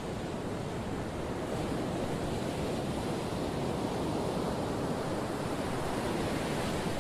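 Steady rushing road and wind noise inside a moving van.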